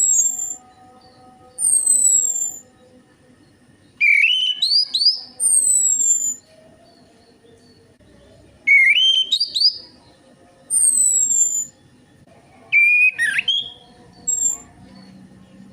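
Orange-headed thrush song played as a lure recording to prompt captive thrushes to sing: five or six bursts of rapid whistled phrases, the notes sweeping up and down with high falling whistles, separated by short pauses.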